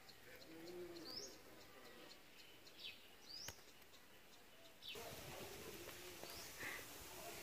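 Quiet outdoor background with a few faint, short rising chirps and a single sharp click about three and a half seconds in. The background hiss gets louder about five seconds in.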